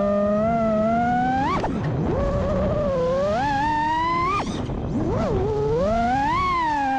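FPV freestyle quadcopter's brushless motors and props (Brotherhobby Avenger 2207.5 2350kv motors, HQProp J37 props) whining, the pitch rising and falling with throttle. Sharp throttle punches rise and cut off abruptly about one and a half and four and a half seconds in.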